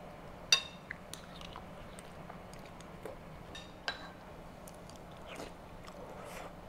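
Light clinks of a metal fork and a ceramic spoon against a plate and a bowl, sharpest about half a second and four seconds in, then soft eating sounds as a spoonful of congee is tasted.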